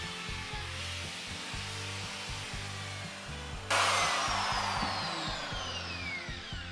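Electric die grinder with an eye tool grinding into soft pine, over background music. A little past halfway a louder stretch of grinding starts abruptly, its whine falling steadily in pitch.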